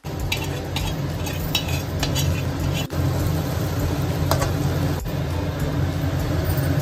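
Vegetables stir-frying in hot oil in an aluminium kadhai: a steady sizzle, with a steel spoon scraping and clinking against the pan now and then, over a low steady rumble.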